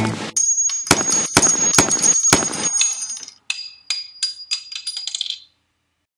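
Rapid string of gunshot sound effects, about six sharp cracks in two seconds, followed by several lighter metallic pings with a high ring, like brass casings falling.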